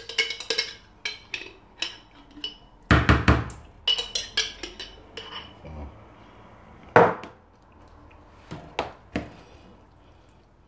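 A metal spoon clinking and scraping in a jar of mayonnaise and knocking against a plastic tub of potato salad as the dressing is scooped out and stirred in. It comes as clusters of quick clicks, with the loudest single knock about seven seconds in.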